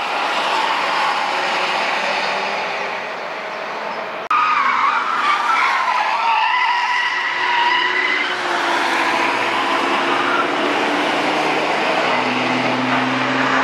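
Cars driving one after another through a bend on a wet track, their engine notes rising and falling as they pass, over a steady hiss of tyres on the damp tarmac. The sound jumps abruptly a little over four seconds in.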